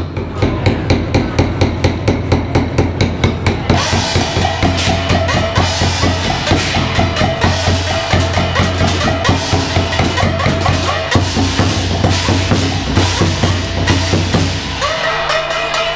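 A Chinese drum troupe plays large red barrel drums struck with sticks in a steady beat. About four seconds in, ringing hand cymbals and small gongs join in and make the texture denser.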